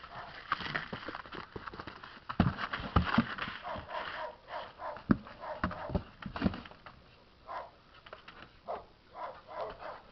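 Two puppies play-fighting on a cardboard box: sharp knocks and scrabbling on the cardboard through the first half, then a run of short puppy calls near the end.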